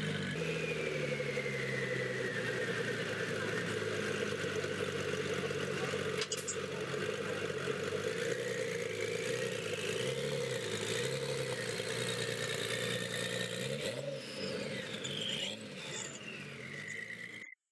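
A car engine running and revving, its pitch falling and rising; it cuts off abruptly near the end.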